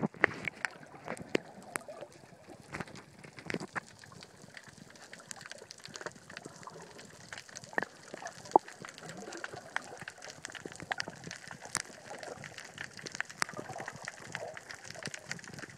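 Muffled underwater sound picked up by a camera held below the surface: a steady wash of water with many scattered sharp clicks and crackles.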